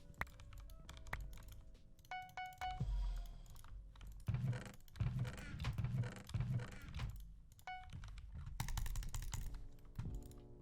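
Typing on a mechanical keyboard: a run of key clicks, denser in two stretches, with background music underneath.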